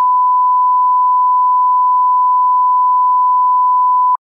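Steady single-pitch line-up test tone, the reference beep that goes with colour bars, cutting off suddenly about four seconds in.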